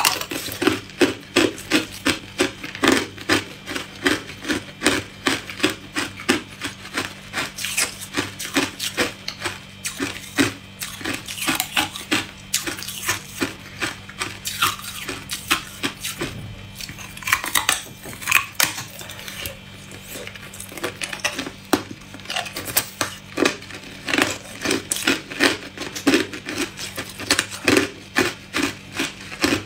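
Hard clear ice being bitten and chewed: rapid, sharp crunches in runs of several a second, with a brief lull about halfway through.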